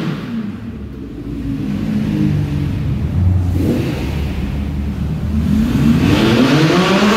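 Supercar engines pulling away in a parking garage. They run at low revs, then one revs up with a steadily rising pitch near the end.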